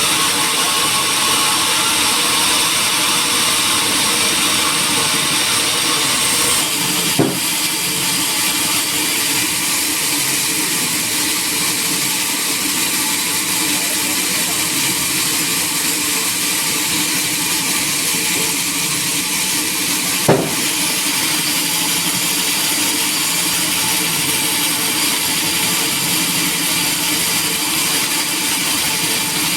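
Sawmill machinery running steadily with a loud, hissing mechanical noise, with two short sharp knocks, one about seven seconds in and one about twenty seconds in.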